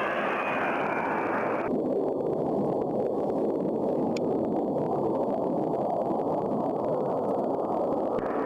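A-10 Thunderbolt II's twin turbofan jets running with a steady, noisy roar. The higher part of the rush drops away about two seconds in and comes back near the end.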